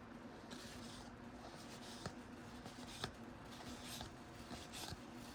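Trading cards slid and flipped off a stack by hand: faint papery swishes with a few small clicks, over a low steady hum.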